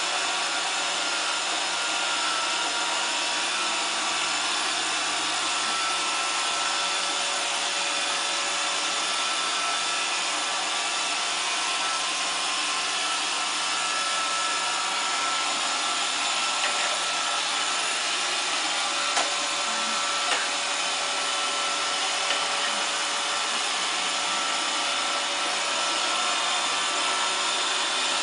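Roomba robot vacuum running on a pool table: a steady whir from its motors and brushes, with a few light knocks in the second half.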